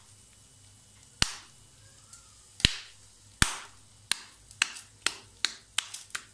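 Raw minced meat slapped between the palms to flatten it into a patty: a series of sharp pats, a few spaced out at first, then coming faster, about three a second, in the second half.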